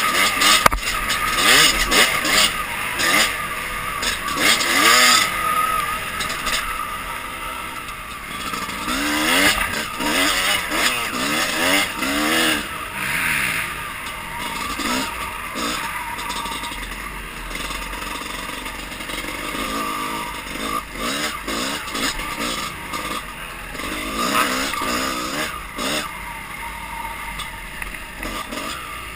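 Dirt bike engine revving up and down again and again as it is ridden along a rough trail, with scattered knocks and clatter.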